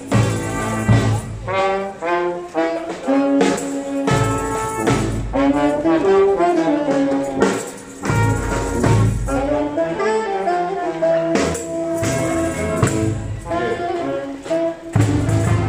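Marching street brass band playing a lively tune: trombones and trumpets carry the melody over a low brass bass line, with drum beats.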